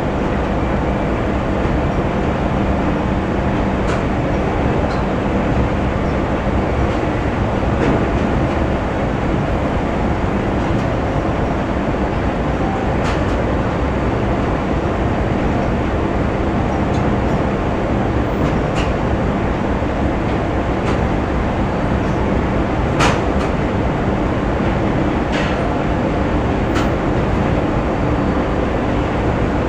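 Factory ambience: a steady rumble of running machinery with a low hum, broken by occasional sharp knocks at irregular intervals, the loudest about two-thirds of the way through.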